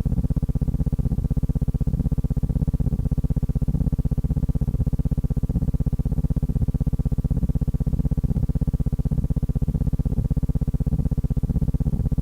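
Steady low electrical hum with a fast, even buzzing pulse and no speech: the background noise of an old film's soundtrack transfer.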